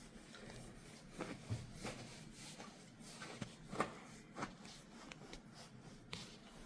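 Hands rubbing and pressing on skin and hair during a head and face massage: soft, irregular rustling strokes, a few louder ones about a second in and around the middle.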